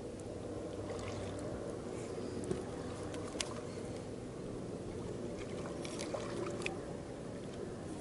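Small waves slapping and lapping against the hull of an inflatable boat, with a few sharp clicks scattered over it.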